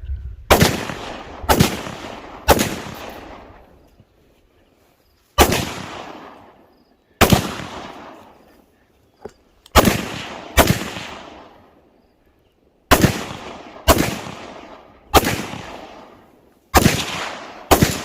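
Twelve 5.56 mm rifle shots fired at an uneven pace, some in quick pairs and others several seconds apart. Each crack rings out with a long echo that fades over a second or two.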